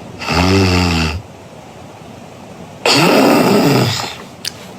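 Recorded human snoring: a low, buzzing snore lasting about a second, a pause of under two seconds, then a louder, rougher snore about three seconds in.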